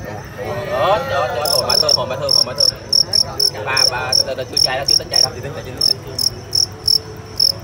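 Male fighting cricket chirping during a bout: a string of short, high chirps, about three a second and unevenly spaced, starting about a second and a half in.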